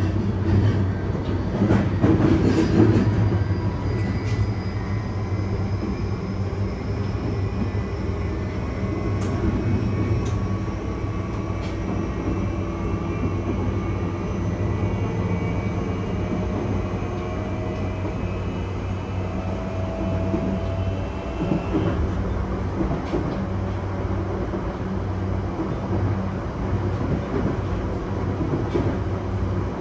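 Running sound of a JR E235-1000 series electric train: the Mitsubishi full-SiC VVVF inverter and traction motors whine, rising slowly in pitch as the train gathers speed, then the whine cuts out about 22 seconds in as power is shut off to coast. Under it runs a steady low drone of wheels on rail, with an occasional knock from rail joints.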